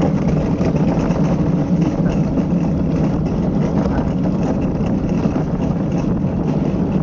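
Skyline luge cart rolling down the track: a loud, steady, low rolling noise from the wheels on the track.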